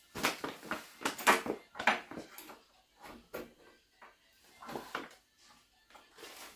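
Knocks and clatter of objects being handled in a small room: a quick run of knocks in the first two and a half seconds, then a few scattered ones around three and five seconds in.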